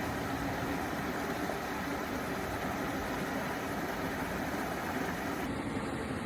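Mountain creek water rushing steadily through pools over rock, an even hiss with no distinct events.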